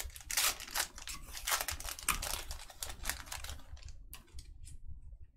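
Trading cards and their pack wrapper being handled close up: a dense run of small clicks, snaps and crinkles that thins out about four seconds in.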